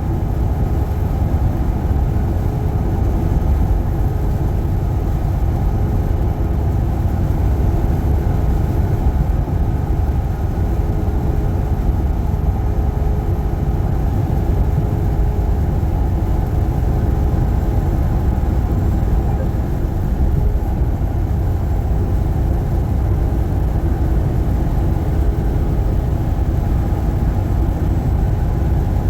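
Truck driving at a steady pace: a constant low rumble of engine and road noise, without letting up.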